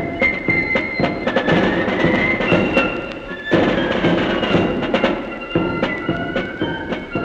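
A military corps of drums playing a march: high flutes carrying the melody over quick side-drum strokes and bass drum beats, the band swelling louder about halfway through.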